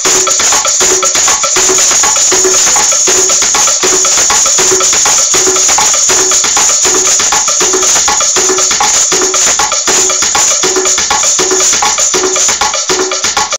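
A pair of maracas shaken in a fast, steady rhythm, with a low note repeating about twice a second beneath the rattle.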